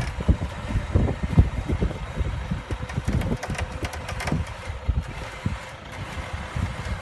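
Vehicle engine running with a low rumble, broken by irregular knocks and bumps.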